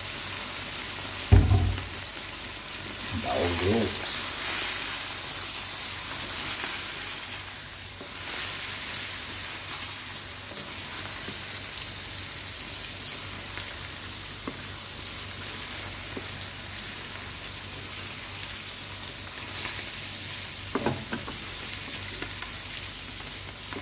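Fish roe and innards sizzling in hot oil in an aluminium wok, stirred and scraped with a wooden spatula. There is one loud low thump just over a second in, and a few light knocks of the spatula on the wok near the end.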